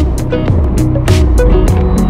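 Background music with a steady drum beat and deep bass notes that slide down in pitch.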